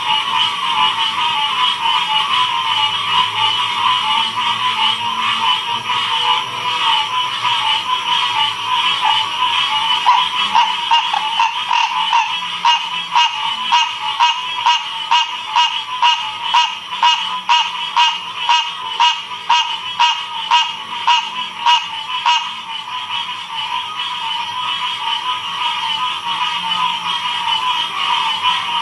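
Frog chorus: many frogs calling together in a dense, steady trill. From about ten seconds in until about twenty-two seconds in, one louder frog calls over it in a regular series of sharp notes, about two a second.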